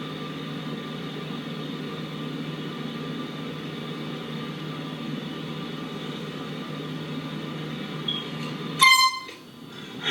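Steady background hum, then near the end a single short, loud blast of a handheld canned air horn, one high tone with many overtones that cuts off abruptly.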